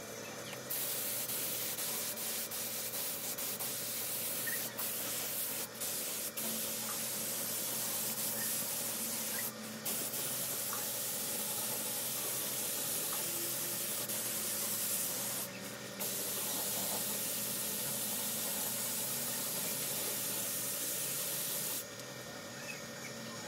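2K clear coat being sprayed: a long, steady spray hiss that starts about a second in, breaks off briefly three times, and stops about a second and a half before the end. A faint steady hum sits underneath.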